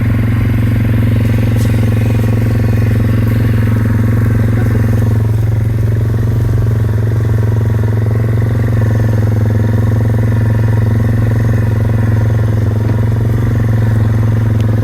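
Kioti tractor's diesel engine running steadily at an unchanging speed, loud and close.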